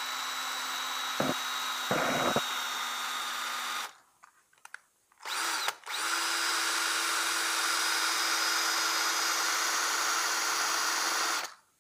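Power drill boring into the lead intercell connector of an opened 12 V lead-acid battery, the step before wiring a jumper around a failed cell. The drill runs steadily for about four seconds and stops, gives a few short bursts, then runs steadily again for about five seconds and cuts off.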